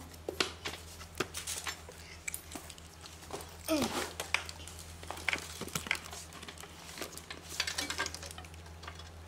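Irregular clicks and taps of small metal parts, screws and brackets being handled while assembling an aluminium extrusion frame, over a steady low hum.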